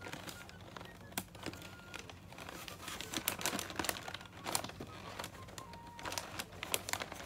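Paper bag crinkling and rustling under hands, in irregular crackles, as paper pieces are pressed flat onto it.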